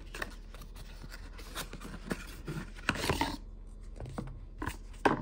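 Small paperboard carton being opened by hand, with its tuck flap pulled open and the box handled. It makes light rubbing and scraping with a few small clicks, and a longer rustle about three seconds in.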